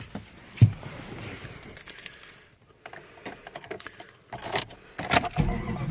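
Keys jangling and clicking, with scattered sharp clicks. Near the end the Jeep's 5.2-litre (318) V8 starts and settles into a steady low rumble.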